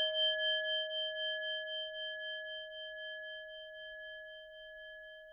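A single struck bell of the singing-bowl kind ringing out, its clear tone fading slowly with a gentle wobble.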